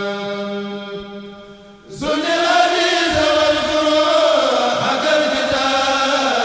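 Unaccompanied Arabic devotional chanting by a Mouride kourel. A long held note fades out about two seconds in, then a new sung phrase begins with a gliding melody.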